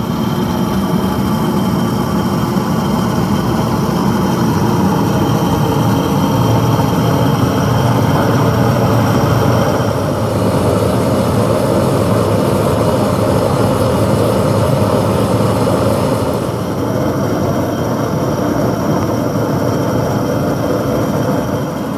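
Loud, steady machinery running, with several steady tones over a dense mechanical noise; the sound thins and loses some of its high end about sixteen seconds in.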